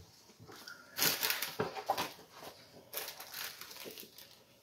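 Rustling and crinkling of things being handled, in two bursts: one about a second in and one about three seconds in.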